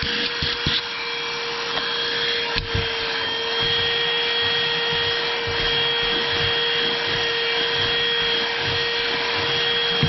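GeeMo X4 cordless handheld vacuum running steadily, a constant motor whine over a rushing hiss of air, with a few light knocks in the first second and a click about two and a half seconds in.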